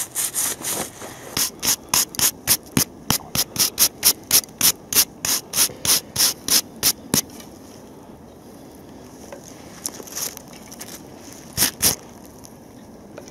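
Rhythmic scraping and rubbing strokes, about three a second, as a gloved hand rubs caked soil off a rusted dug-up metal relic; the strokes stop about seven seconds in, and a few single scrapes follow near the end.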